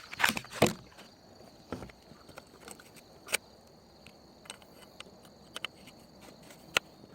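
Close handling knocks and clicks: a few sharp ones in the first second, then scattered faint clicks over a quiet outdoor background.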